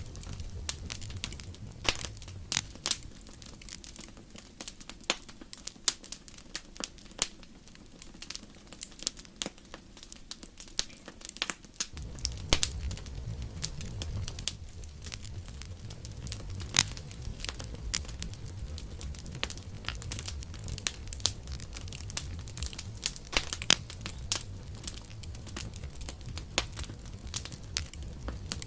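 Wood campfire crackling, with frequent irregular sharp pops and snaps over a low rumble of flames. The rumble drops away for several seconds and comes back abruptly about twelve seconds in.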